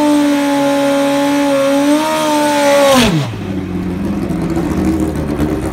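Pro Stock-style Suzuki drag bike engine held at high revs during a burnout, its pitch rising slightly about two seconds in; about three seconds in the revs drop sharply and the engine settles to a low, rough idle.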